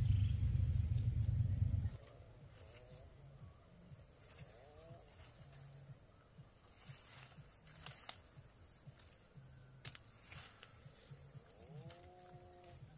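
A loud low rumble that cuts off suddenly about two seconds in. Then faint outdoor ambience: a steady high insect-like drone with small repeated chirps, a few short animal calls and scattered clicks.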